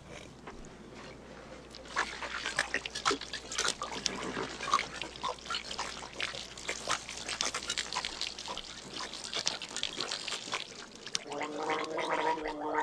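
A man drinking water from a leather canteen in a run of wet, irregular gulps. Near the end he gargles it with a held voiced tone.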